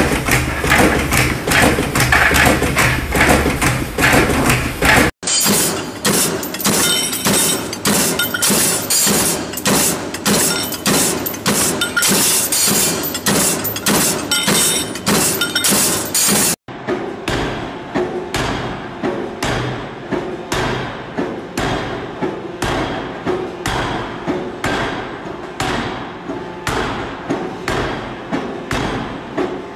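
Factory machinery in three parts. First a machine clatters over a steady hum. Then comes rapid metallic clatter from a press working a steel disc. From about 17 seconds a forging hammer strikes a red-hot steel bar in evenly spaced heavy blows, about one every three-quarters of a second, each with a short metallic ring.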